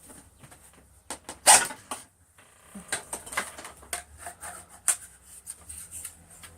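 Clicks and knocks of plastic parts being handled on an upright vacuum cleaner, with one louder knock about a second and a half in.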